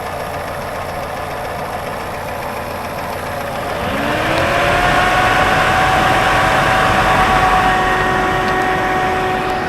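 Lada Niva's engine running. About four seconds in, a whine rises in pitch, then holds steady as the sound gets louder.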